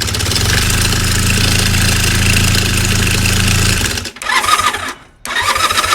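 A Honda CB400N parallel-twin engine, just started, runs with its valve cover off. It runs steadily, breaks off about four seconds in, and comes back in two shorter stretches. It carries the knock the owner is tracking down and suspects lies in the cam chain and its tensioner.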